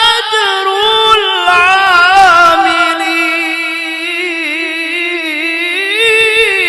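A male Quran reciter holding a long, high melismatic note in a loud voice. The pitch wavers in an even vibrato and climbs slightly near the end.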